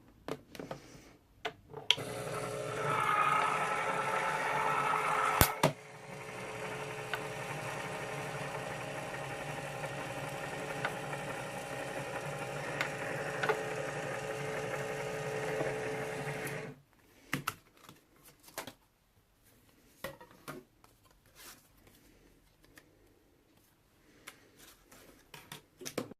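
Small motor running steadily for about fifteen seconds with a steady whirr, a sharp click about five and a half seconds in. When it stops there are a few faint knocks and clicks.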